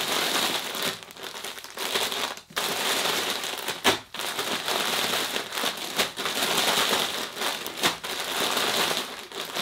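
Heat-sealed plastic bag of pasteurized straw pellets and grain spawn being shaken and tumbled to spread the spawn through the substrate: plastic crinkling with pellets rustling inside. A few sharp knocks come through, the loudest about four seconds in.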